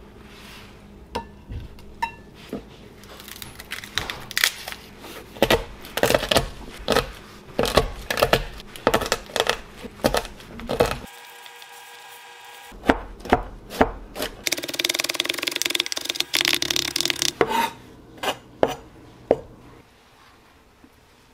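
A chef's knife chopping garlic on a wooden cutting board: a long run of quick, sharp knocks, broken briefly about eleven seconds in, with a denser stretch of rapid mincing after that.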